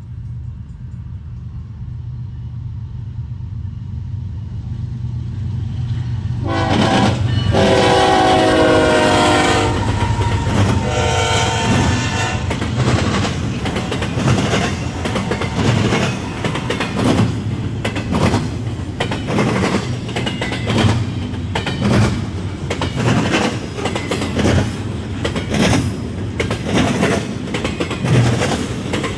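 Approaching freight train's locomotive horn sounds two blasts, the first long and the second shorter, over a building rumble. Then a double-stack intermodal train rolls past close by, its wheels clacking rhythmically over the rail joints.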